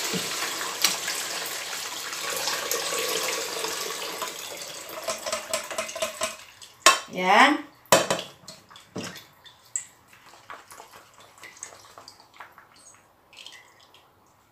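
Chicken stock poured from a pot through a plastic colander into a steel stock pot: a steady pouring splash that tapers off about six seconds in. After that come a few sharp knocks and scattered clatters of the colander and cookware against the pot.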